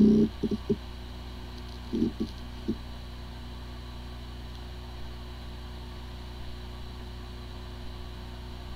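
A hard drive with corrupted firmware, running: a few short knocks in the first three seconds, then a steady spindle hum. It sounds like a healthy drive even though the firmware corruption keeps the computer from detecting it.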